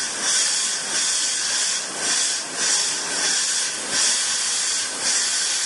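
Carbon dioxide gas hissing out of a freezing microtome's valve onto the specimen stage in short, evenly spaced spurts, a little more than one a second, as the valve is opened and closed to freeze the tissue block and knife.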